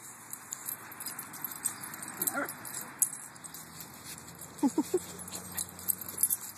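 A small dog gives a few short yips, one about two seconds in and a quick pair near the middle, over a steady outdoor hiss.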